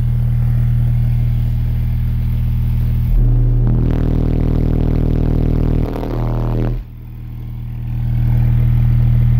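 A 40 Hz test tone played at full power through six Soundstream XXX 15-inch subwoofers on a Soundstream XXX 15000D amplifier wired to 0.47 ohm, heard inside the truck cabin as a very loud, distorted bass drone. It holds steady, gets buzzier with extra overtones in the middle, dips about two-thirds of the way through, then swells back up.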